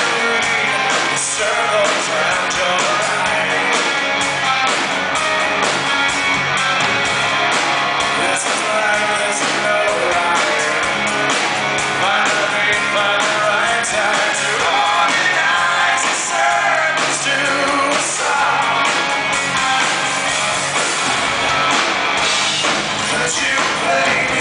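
Live rock band playing loudly: a male lead voice singing over electric guitars and bass guitar.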